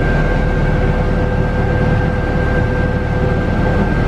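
Timberjack 1010B forwarder's diesel engine running steadily with a thin, steady whine over it, heard from inside the cab as the loader boom is swung on its hydraulics.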